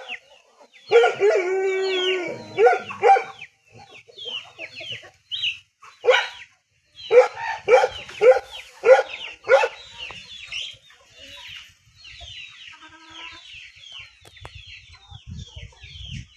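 Chickens calling: a rooster crows once, about a second in, then loud short clucks follow, and near the end comes a steady stream of quick, high, falling peeps.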